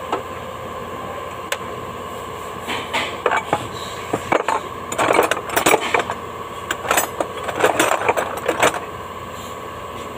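Metal hand tools clinking and rattling in quick clusters as a mechanic works under a car on a lift, over a steady hum. The clinks come in bunches from about three seconds in until near the end.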